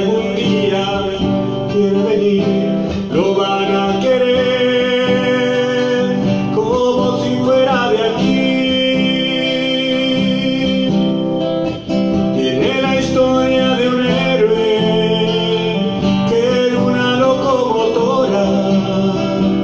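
A man singing solo with an acoustic guitar accompaniment, holding long notes and sliding between pitches.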